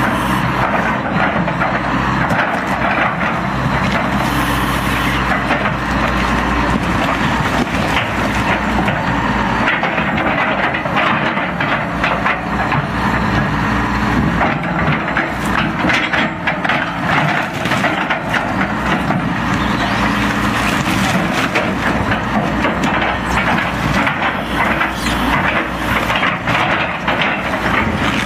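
Excavator diesel engine running while the bucket presses down on and scrapes through demolition debris, with wooden panels and sheet metal repeatedly cracking, splintering and clattering.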